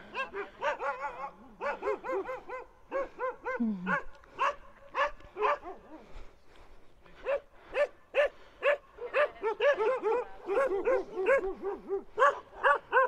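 Several sheep-guarding dogs barking in quick, overlapping barks, a few a second, easing briefly about six seconds in before picking up again.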